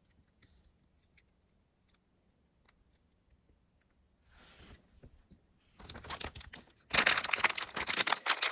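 A few faint clicks, then a LEGO minifigure blind bag's thin plastic foil crinkling as it is handled and cut open with scissors, growing loudest over the last second and a half.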